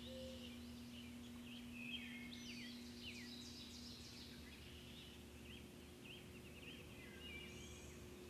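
Faint chorus of small songbirds: many short chirps and quick song phrases from several birds, overlapping. A low steady hum runs underneath.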